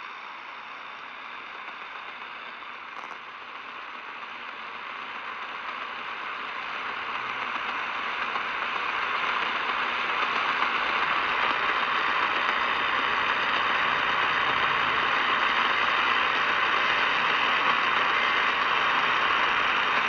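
Steady hiss of AM radio static from a small portable radio's speaker, tuned to 1090 on the AM band, growing louder over the first ten seconds or so and then holding steady.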